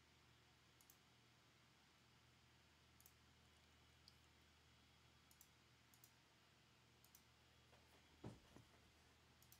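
Near silence: a faint room hum with scattered soft clicks, about one a second, and a slightly louder soft thump near the end.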